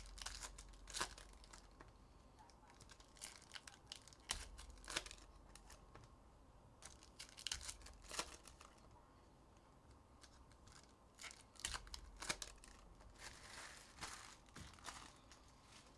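Foil trading-card pack wrappers being torn open and crinkled by hand, in irregular bursts of short rips and crackling, with cards being handled between them.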